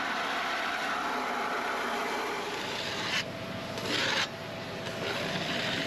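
A hose spray nozzle hissing as it fills a plastic bucket with water. About three seconds in it changes to a metal scraper rasping in strokes across the bimini's underside, scraping off stuck dead insects.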